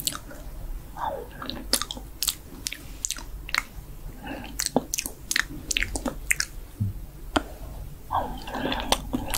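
Close, wet mouth sounds: irregular lip smacks, tongue clicks and mock chewing and biting, with a spoon put into the mouth.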